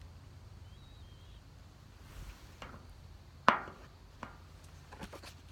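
A few knocks and clicks, the loudest a single sharp knock with a brief ring about halfway through, over a faint low hum.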